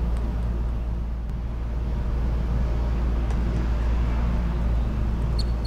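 Steady low rumble of the playing hall's background noise, with a few faint sharp ticks from the table tennis ball near the end.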